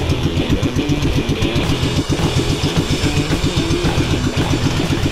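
A fishing boat's engine running steadily with a fast, even throb, and a steady hiss over it.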